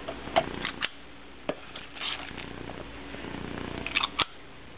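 Metal squeeze-handle kitchen scoop clicking and tapping as it releases a soft chicken and broccoli mixture onto dough in a pie plate. The sharp clicks bunch together at the start and near the end, with one in between.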